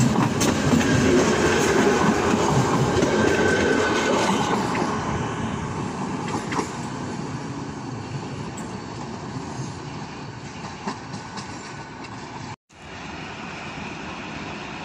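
ČD class 471 CityElefant double-deck electric unit running past on the rails, wheels rumbling, with a thin wheel squeal for a few seconds, the sound fading as the train draws away. A brief dropout about twelve and a half seconds in, then a quieter, steady rail noise.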